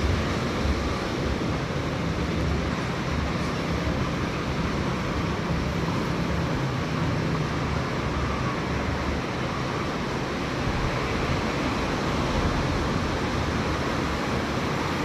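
Ocean surf washing steadily, with wind buffeting the microphone in low, uneven rumbles.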